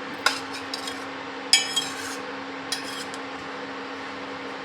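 Metal kitchen utensils clinking against a cooking pot: a few sharp clinks, the loudest about a second and a half in with a brief metallic ring, over a steady low hum.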